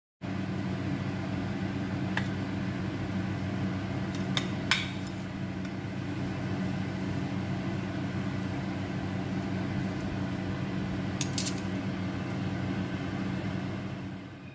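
A steady low hum with a few sharp clinks of a metal fork against a ceramic plate, the loudest about a third of the way in and another pair near the end.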